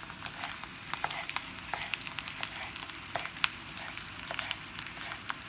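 Thinly sliced potato frying in olive oil in a pan, a steady sizzle with scattered sharp crackles as it starts to cook. A chef's knife taps on a wooden chopping board, finely slicing spring onion.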